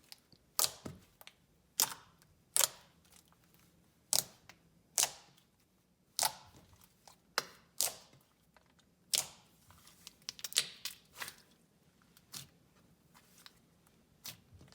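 Thick, glossy clay slime with foam beads and jumbo beads being squeezed and poked by hand, giving sharp, irregular clicks and pops about one or two a second.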